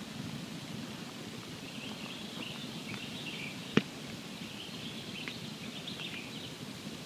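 Wood campfire burning with a steady low rush and scattered faint crackles, and one sharp pop just past halfway.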